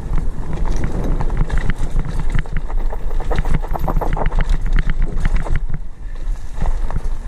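RadRover fat-tire e-bike rattling and clattering over a rough dirt trail, a dense run of clicks and knocks from the bike and tyres that eases briefly about six seconds in, over a steady low rumble of wind on the microphone.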